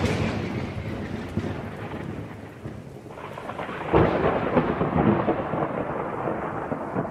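Rolling thunder: a loud rumble dying away, then a second, louder roll about four seconds in that slowly fades out.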